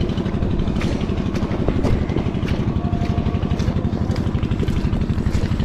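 Wind buffeting the camera microphone: a steady, fluttering low rumble, with scattered light clicks over it.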